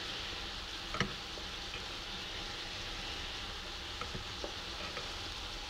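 Shiitake mushroom caps sizzling and bubbling in soy sauce and water in a skillet, a steady hiss. A sharp click comes about a second in, with a few fainter ticks near the end.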